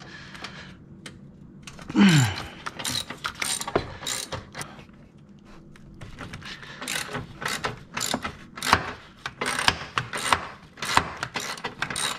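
Socket ratchet clicking in irregular runs as a fastener is worked loose. About two seconds in, a short loud sound slides down in pitch.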